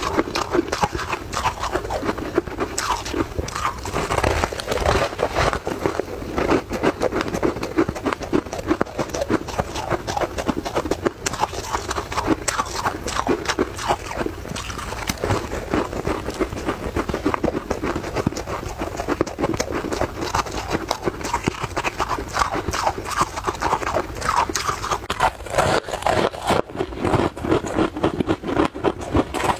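Close-miked crunching and chewing of crumbly ice, a dense run of rapid crackly crunches with a short pause near the end.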